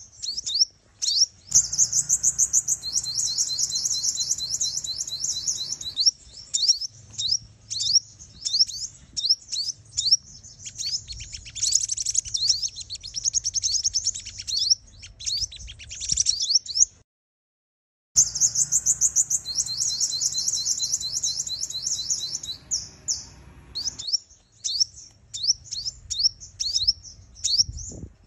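A female sunbird calling in rapid, high-pitched chirps and twittering trills, the kind of call used as a lure to excite males. The calls cut off for about a second around two-thirds of the way through, then the same sequence starts again.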